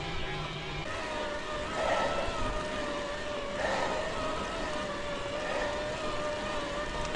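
Specialized Turbo Creo e-road bike's mid-drive motor whining steadily under heavy load on a very steep climb, its pitch wavering slightly, over a low rumble. Two short rushes of noise come about two and four seconds in.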